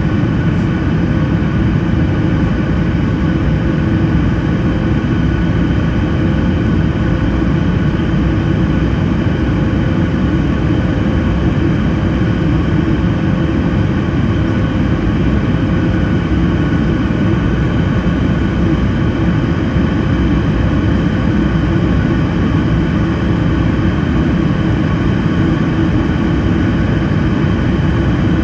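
Steady cabin drone of a Boeing 737 MAX 9 in the climb-out after takeoff, heard from a seat over the wing: the CFM LEAP-1B turbofans and rushing air give an even low rumble with faint steady whine tones above it.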